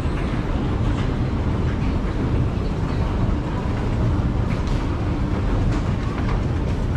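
A 1980s Hitachi escalator running, heard while riding it: a steady low mechanical rumble from the moving steps and drive, with a few faint clicks.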